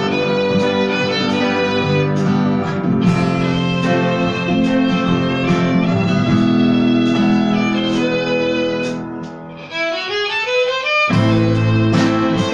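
Violin playing a melody over accompaniment with a regular beat. Near the end the accompaniment drops out for a quick rising run of notes, then comes back in.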